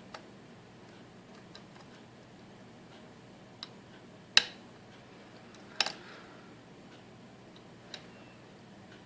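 Scattered sharp metallic clicks and ticks of a lock pick working the pin stack of a Sargent Signature LFIC core under tension. The loudest click comes about four and a half seconds in, and a doubled click follows about a second and a half later.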